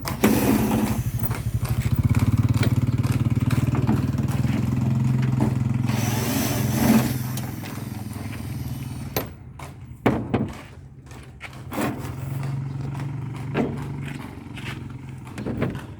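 A small engine starts and runs at a steady idle, louder for the first several seconds and then settling lower. A few short knocks sound over it in the second half.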